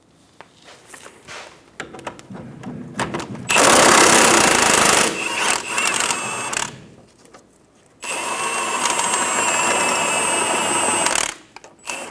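Cordless impact wrench with a 17 mm socket hammering the nut off the lower shock bolt, in two runs of about three seconds each, the first starting a few seconds in and the second near the middle. Light clicks of tools being set in place come before.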